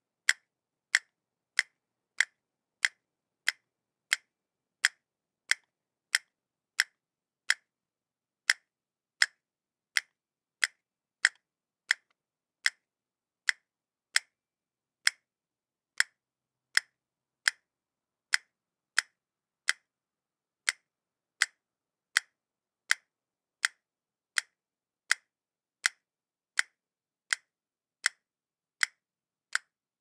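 Castanets clacking one single click at a time in a steady, even rhythm, about three sharp clacks every two seconds, with silence between them.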